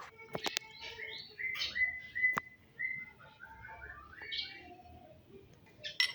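Songbirds chirping and whistling in quick, varied notes, with a few sharp clicks in between.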